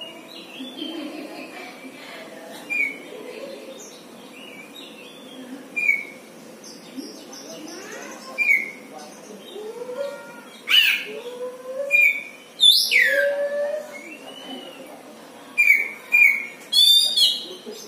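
Oriental magpie-robin (kacer) giving short chirps every few seconds, then louder sweeping notes and a quick rattling phrase near the end: the unusual calls of this pet bird.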